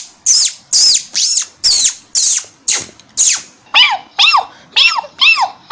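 A human voice making a mouth-made sound effect: short chirps repeated about twice a second. The first seven are hissy with falling sweeps, and then, a little past the middle, four pitched chirps that rise and fall in pitch.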